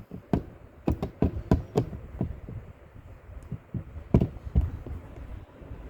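Irregular light knocks and taps as the hard plastic dog crate is handled during the weld repair: a quick run of about seven in the first two seconds, then two more about four seconds in.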